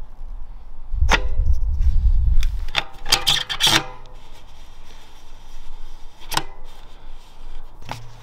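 Knocks, clicks and rubbing from fitting the front wheel into a road bike's fork, as the wheel goes into the dropouts and the thru-axle is pushed through the hub and tightened. A sharp knock about a second in is followed by a low rumble, then a quick cluster of clicks about three seconds in and single knocks later.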